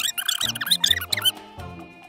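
High-pitched squeaky chattering comedy sound effect, standing in for a whisper into someone's ear. It stops about a second and a half in, over light background music with a plodding bass line.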